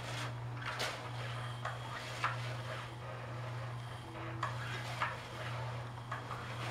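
Battery-powered cat toy running, its wand moving under a fabric cover: a steady low motor hum, with scattered light clicks and taps.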